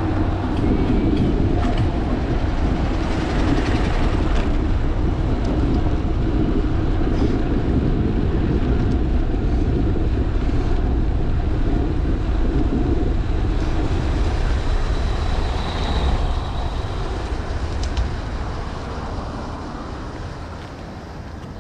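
Wind rushing over a bike-mounted action camera's microphone, with bicycle tyre noise on asphalt. It is steady, then dies down over the last few seconds as the bike slows.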